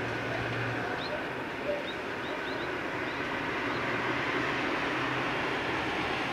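Steady outdoor background noise with a low hum, and a few faint high bird chirps between one and four seconds in.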